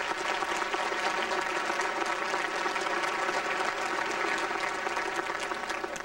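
Large audience applauding steadily in an arena, dying down near the end.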